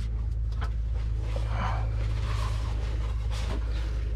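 A steady low rumble, with light handling noises and faint clicks as a shop towel is handled around disconnected hydraulic hose fittings.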